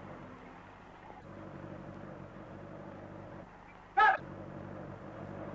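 Motor-truck engine running steadily on an old film soundtrack that carries almost nothing high, with one brief, loud, high-pitched call about four seconds in.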